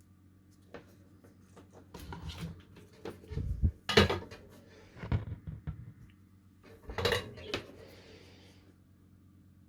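Small metal tools and parts clinking, tapping and being handled on a workbench while wires are soldered to a small speaker. The clicks come in several short clusters, the loudest about four seconds in, over a faint steady electrical hum.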